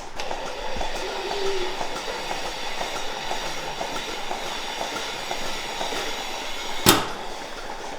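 A machine running with a steady, light rhythmic clatter, and a single sharp click about seven seconds in.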